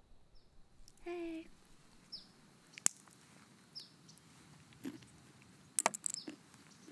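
Pistachio shells being cracked open by hand and the nuts eaten: a few sharp cracks and clicks, one loud crack about three seconds in and a quick cluster near the end. A short hummed "mm" comes about a second in.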